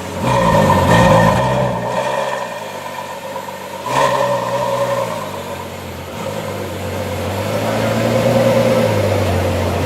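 Ferrari F12 Berlinetta's 6.3-litre V12 being revved: a sharp blip just after the start, another about four seconds in, then a slower climb in revs toward the end.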